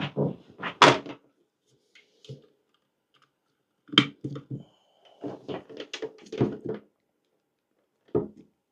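Handling clicks and knocks of a charging cable being plugged into a portable generator's USB port and moved about on a wooden table: a sharp click about four seconds in, then a quick run of small knocks and rattles.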